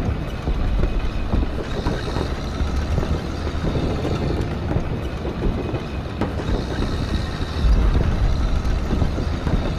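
Distant-battle ambience sound effect: a continuous low rumble with crackling over it, and a deeper rumble swelling up near the end.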